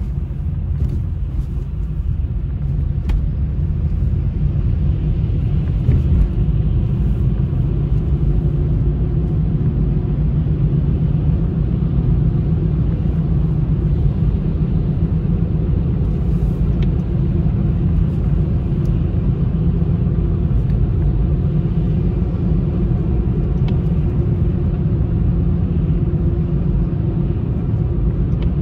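A car driving on a city road, heard from inside the cabin: a steady low rumble of engine and tyre noise that grows a little louder in the first few seconds, with a few faint clicks.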